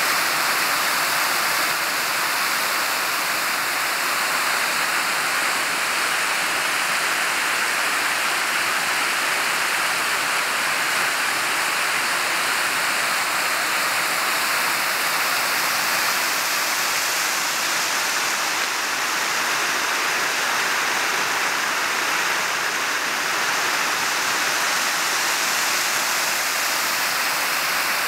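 River rapids: fast water rushing steadily over rocks, an even, unbroken rush of white water.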